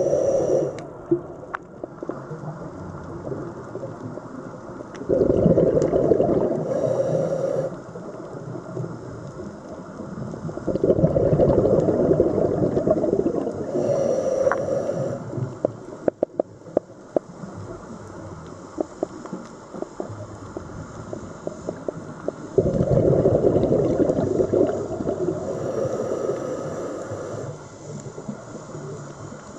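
A scuba diver's breathing heard underwater: rumbling bursts of exhaled bubbles from the regulator, each lasting a few seconds and coming back every five to ten seconds, with softer hiss between breaths and a few sharp clicks about halfway through.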